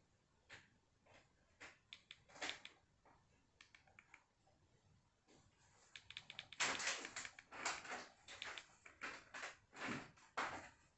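Irregular plastic clicks of remote-control buttons being pressed, sparse at first and then coming in quick clusters of taps from about six seconds in.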